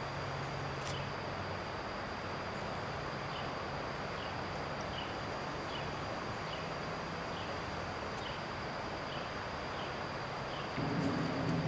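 Outdoor ambience: a steady hiss with a constant high whine and a faint, short chirp about once a second. About a second before the end, a louder low rumble of a passing vehicle comes in.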